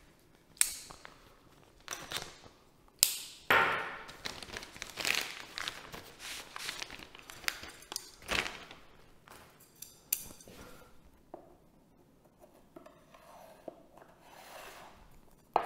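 Clear plastic bag crinkling and rustling as two carbon-fibre wing spars are slid out of it, with a few sharp clicks and taps along the way.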